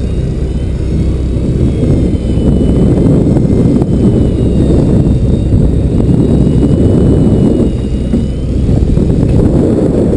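Steady low rumble on a small fishing boat at sea: wind buffeting the microphone over the drone of the boat's engine.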